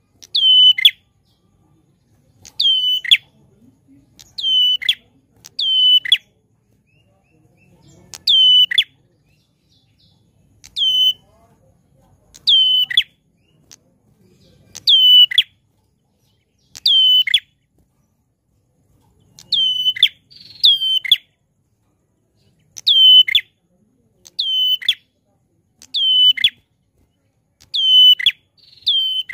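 Caged prenjak klawu giving short, sharp calls, each a quick downward-sweeping note, repeated every one to two seconds, about fifteen in all.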